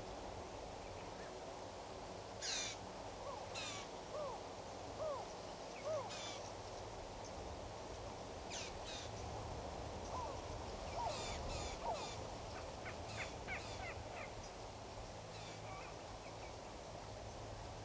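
Wild birds calling in the bush: a dozen or so short, harsh calls and a few short rising-and-falling notes, scattered over a steady background hiss.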